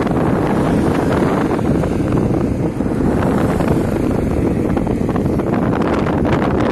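Wind buffeting the microphone on a moving e-bike: a loud, steady rumble and hiss, with some crackling near the end.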